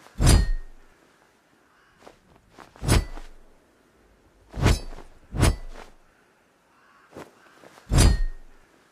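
Cutlass blade struck five times at uneven intervals, each a sharp metallic hit with a short ringing tail.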